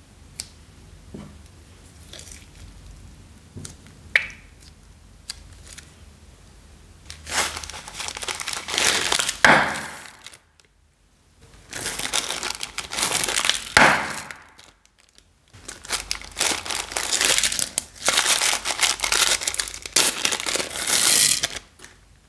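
Thin plastic bags crinkling and beads rattling as bags of beads are poured out, in three long stretches about a second apart. In the first few seconds there are only a few sharp snips and clicks as scissors cut a bag open.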